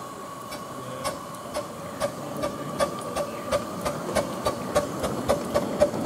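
7¼-inch gauge miniature steam train, the River-class 2-4-2 No.1 'Afon Glaslyn', pulling away past with passengers: a regular clacking that quickens as it gathers speed, over a steady high tone and a rising rumble.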